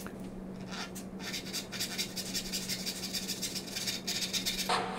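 Brass-backed dovetail saw cutting straight down into the end grain of a pin board: a steady run of light, rasping saw strokes through the wood.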